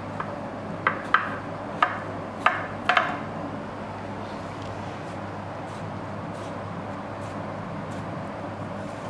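Kitchen knife cutting through a half watermelon, knocking sharply against the tray beneath about six times in the first three seconds. After that only a steady low hum remains.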